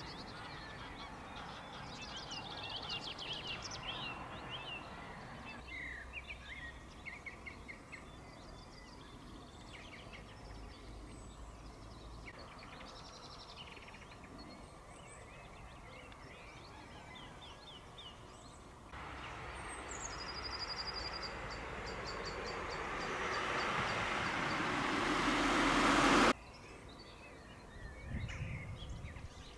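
Several songbirds chirping and trilling. About two-thirds of the way through, a rushing noise swells steadily louder for several seconds and then cuts off suddenly.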